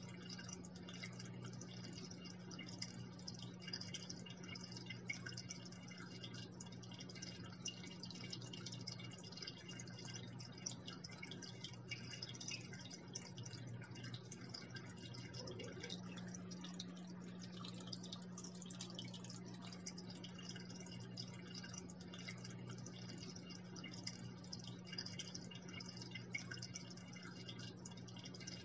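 Faint, steady trickling and splashing of water falling into an aquarium, over a steady low hum.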